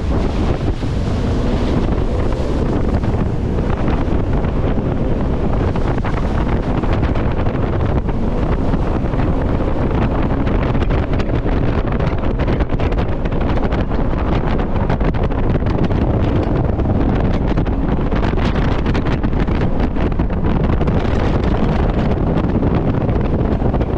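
Steady wind buffeting the microphone of a jet boat running at speed, over the rush of river water and the boat's engine.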